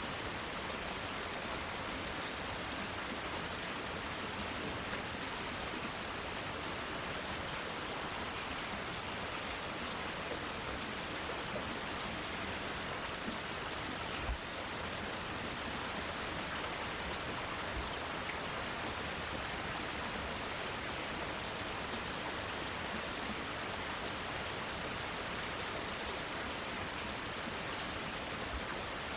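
Steady rain falling, an even hiss with no let-up. One brief tap stands out about halfway through.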